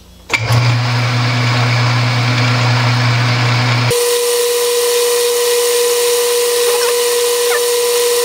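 Metal-turning lathe switched on and running, with a low hum. About four seconds in the sound changes abruptly to a steady running whine.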